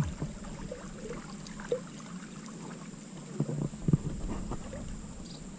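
Steady rush of a flowing river, with a few soft knocks as the rod and reel are handled.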